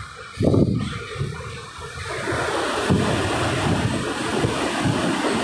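Passenger train running: a steady rumble and rattle of the carriage, with uneven low knocks from the wheels on the track. A loud thump about half a second in.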